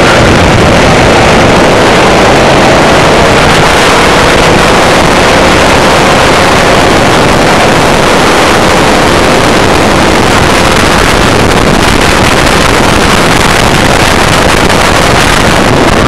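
Racing go-kart engine running hard at speed, heard from an onboard camera and largely buried in loud, steady wind rush on the microphone.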